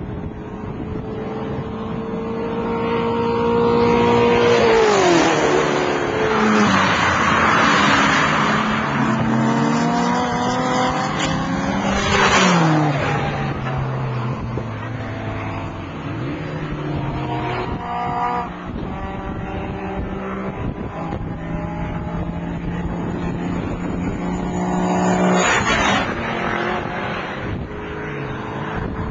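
Toyota Corona's 2JZ-GE straight-six on individual throttle bodies, driven hard on a race circuit. The engine note climbs and drops sharply several times with gear changes, is loudest in the first half as the car goes by, then holds a steadier lower note.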